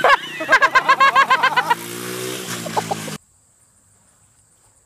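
Small dirt bike's engine revving, its pitch climbing and then dropping, under loud excited yelling for the first second and a half. The sound cuts off abruptly about three seconds in, leaving near silence.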